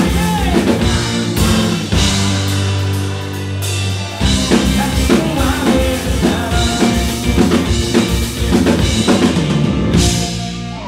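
Live indie rock band playing the closing bars of a song: electric guitar, bass and drum kit with sung vocals. The band holds a long chord a few seconds in and ends on one final hit near the end.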